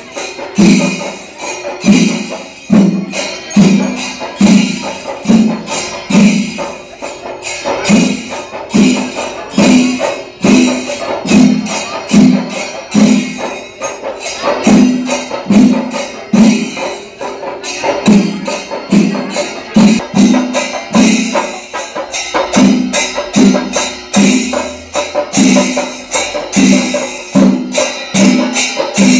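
Kerala temple percussion ensemble playing: drums struck in a steady beat over dense, rapid clashing of metal hand cymbals.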